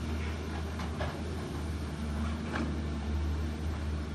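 Volvo excavator's diesel engine running with a steady low drone as the machine swings its long-reach boom, with a couple of faint brief ticks over it.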